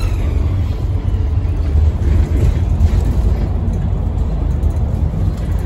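Steady low rumble of a West Coast Motors bus on the move, heard from inside the passenger saloon. A passing ambulance siren fades out just as it begins, dropping in pitch.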